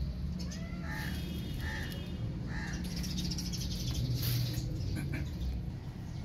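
Tiny kitten mewing three times, short high calls that rise and fall, about a second apart, followed a little later by a brief hissing noise.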